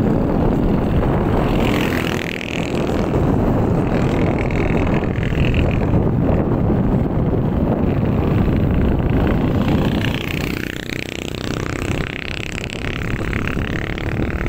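Motorcycle running during a ride, with wind rushing over the microphone; the engine pitch rises and falls a few times.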